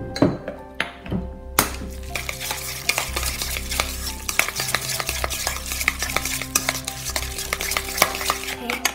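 Metal chopsticks stirring a wet minced meat and celery filling in a stainless steel bowl: fast, continuous clicking and scraping against the bowl that starts about a second and a half in. A few separate knocks come in the first second.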